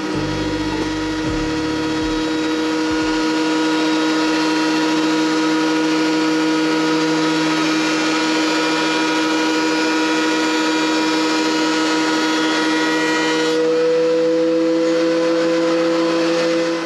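A power tool's electric motor running steadily: a constant whine of several pitches over a rush of noise. About three-quarters of the way in the hiss thins while the whine holds, and the sound cuts off abruptly at the end.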